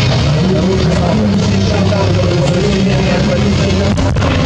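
Loud background music, a rock-style track with sustained held notes and a brief break about four seconds in.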